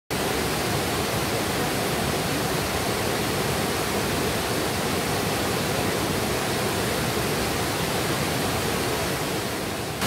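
A waterfall in heavy flow, rushing steadily as it pours down over rocks into a stream.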